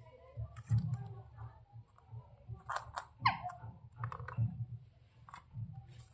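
Ringneck parrot giving one short chirp that falls steeply in pitch about three seconds in, among scattered soft clicks.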